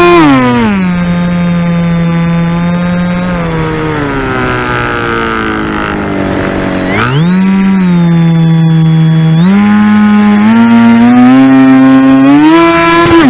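Radio-controlled model airplane's motor heard close up from a camera on the plane, running at changing throttle. Its pitch drops in the first second, holds, sinks lower with a rushing noise around the middle, then climbs back up in steps toward the end.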